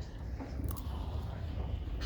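Low room rumble with faint, indistinct voices in the background, and a light click about a third of the way in.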